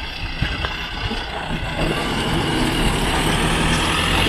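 A Hong Kong green minibus drives past close by, its engine running and its tyres on the road growing steadily louder as it approaches.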